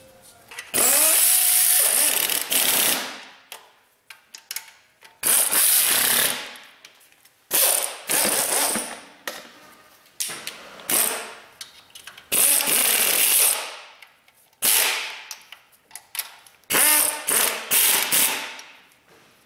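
Pneumatic wrench running in repeated bursts of one to two seconds, with a strong air hiss, and several quick spurts near the end. It is running the AC compressor mounting nuts down tight.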